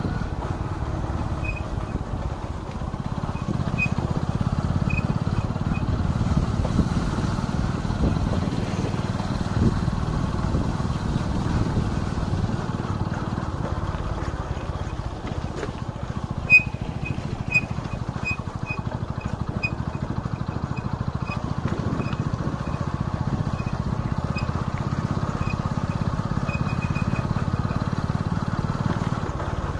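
Motorcycle being ridden along a road: a steady low engine drone mixed with wind noise. From about halfway through, a run of short high pips comes roughly twice a second.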